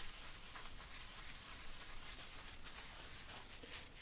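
Faint rubbing of a rag wiping oil into a hot Griswold cast iron skillet, over a low steady hiss.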